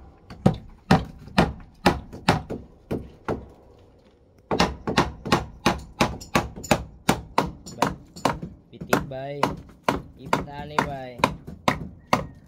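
Repeated pounding blows on building work, about two strikes a second, stopping briefly around four seconds in and then going on steadily.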